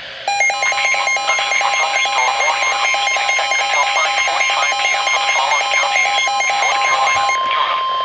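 NOAA weather alert radios sounding their alert alarm: a rapid, even electronic beeping that stops abruptly about seven seconds in. A steady tone comes in near the end.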